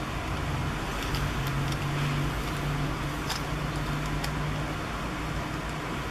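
A steady low hum that swells for a few seconds and eases off, with a few faint, sharp clicks of small plastic figure parts being handled and pressed together.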